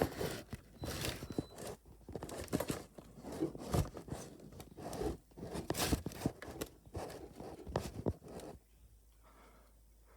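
Handling noise from a camera being moved about and set down on a box: irregular knocks, scrapes and rustles close to the microphone, stopping abruptly about eight and a half seconds in.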